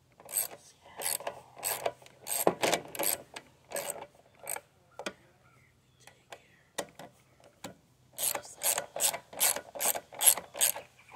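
Socket ratchet wrench clicking in repeated back-strokes as the mower's carburetor mounting bolts are tightened down. About two strokes a second come in one run, then a pause, then a second quick run near the end.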